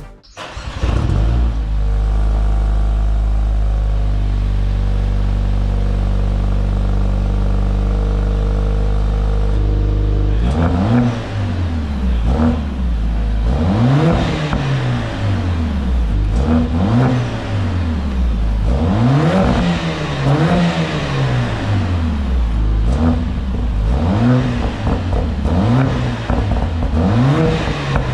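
Mercedes-AMG A45 S turbocharged four-cylinder engine through its freshly modified exhaust (straight-through resonator, partly de-silenced valved back box), idling steadily at first. From about ten seconds in it is revved repeatedly, with quick blips that rise and fall roughly every two seconds.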